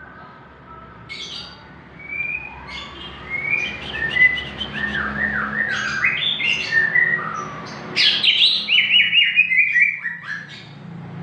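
Greater green leafbird (cucak ijo) in full song: a varied string of chirps and whistled phrases that grows louder after about two seconds, ending in a rapid run of notes falling in pitch.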